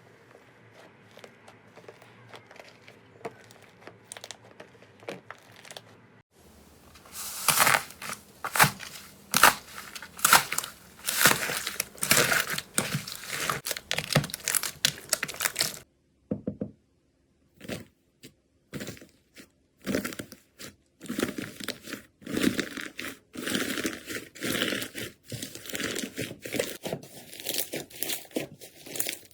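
Slime being squeezed and stretched by hand, making dense crackling and popping. It is faint for the first few seconds, loud from about seven seconds in, and briefly near silent around sixteen to nineteen seconds before the crackling resumes.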